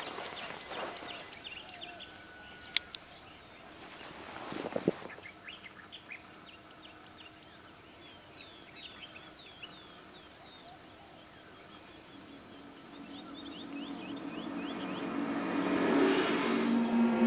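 Outdoor ambience of small birds chirping over a faint steady high insect sound, with a sharp click and a brief rustle in the first few seconds. A low humming music drone swells up over the last few seconds.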